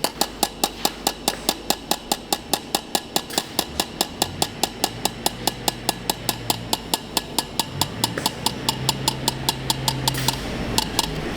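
Rapid, evenly spaced knocks, about five a second, stopping about ten seconds in, with a low hum coming in partway through.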